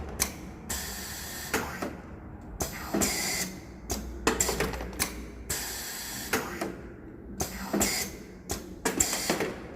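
Automotive parts sorting machine running: irregular mechanical clicks and clacks with short bursts of hiss every second or so over a low steady hum.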